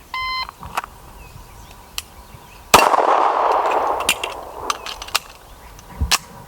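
Shot timer's start beep, then a single handgun shot about two and a half seconds later, echoing for about a second, followed by a run of sharp clicks and clacks of a magazine change in a combat reload.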